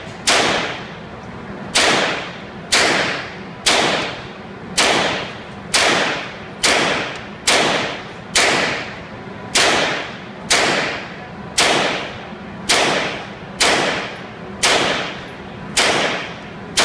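Semi-automatic Sten short-barrelled rifle firing single 9mm shots at a steady pace of about one a second, each shot ringing off the walls of an indoor range.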